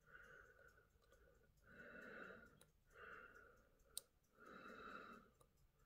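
Near silence with slow, soft breathing close to the microphone, about one breath every second and a half. A single sharp click comes about four seconds in, as the tweezers and tool touch the watch movement.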